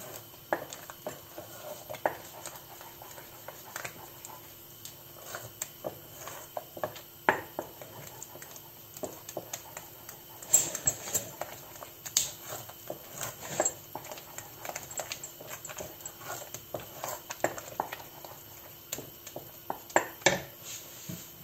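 Wooden spoon stirring thick ham béchamel in a stainless steel pot, with irregular soft knocks and scrapes against the pot throughout.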